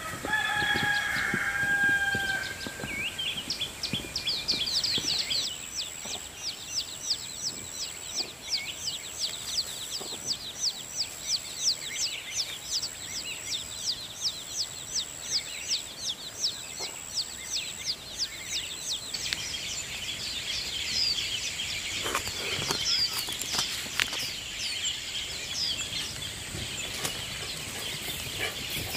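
Chickens: a short pitched call from a hen or rooster at the start, then chicks peeping in a fast, even run of high falling peeps, about three a second, for some fifteen seconds. After that come scattered chirps and a few sharp knocks.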